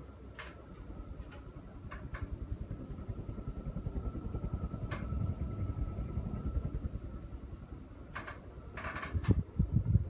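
SMC HM326ML-WH ceiling fan running with two blades, with a fast, even rattle from the loose screws of its light-kit globe holder and a faint steady whine. A few sharp clicks sound, the loudest near the end.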